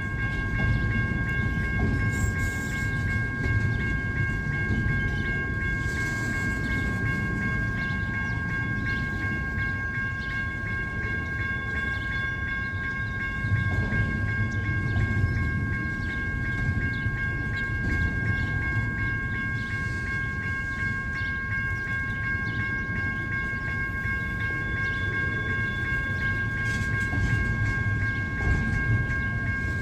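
CP intermodal freight train rolling past: steady rumble of the cars with wheels clicking over the rail joints. A steady high whine holds through it.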